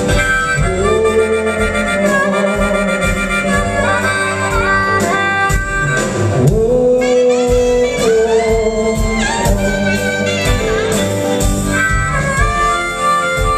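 Live band music led by a saxophone, with electric guitars and keyboard behind it.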